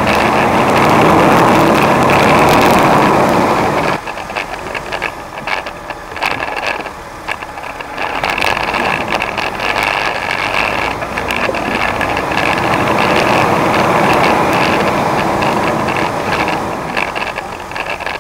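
Off-road 4x4 engine running while crawling a rocky trail, with scattered knocks and rattles from rocks and the vehicle. A loud, dense rush fills the first four seconds, then drops off suddenly to quieter running.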